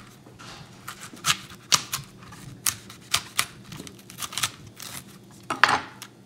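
A knife cutting through raw cauliflower stems on a cutting board, with irregular crisp snaps and crunches as the florets are cut and broken away from the head. A somewhat longer, louder crackle comes near the end.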